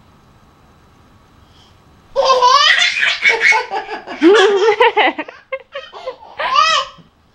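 A toddler laughing loudly in a run of high-pitched peals that start about two seconds in, with a short break before a last peal near the end.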